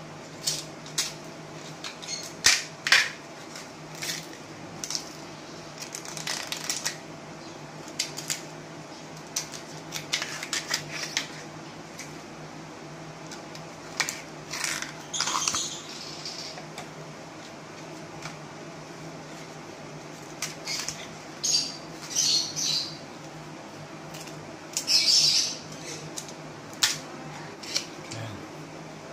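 A kitchen knife and fresh bamboo shoots being worked on a plastic cutting board while the shoots are peeled: irregular sharp knocks and taps, with short, brighter scraping and tearing sounds as the sheaths come off, over a steady low hum.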